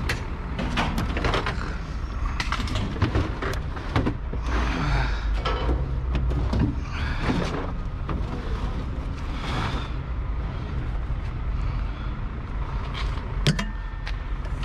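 Scrap being unloaded off a tipped cage trailer, including a washing-machine cabinet: repeated metal clanks, knocks and scrapes over a steady low rumble, with a brief high squeak near the end.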